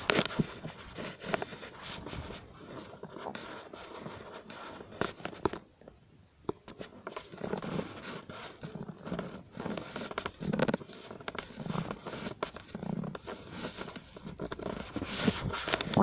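A stomach gurgling and growling: irregular wet clicks and pops with low rumbling gurgles, dipping quieter for a moment about six seconds in.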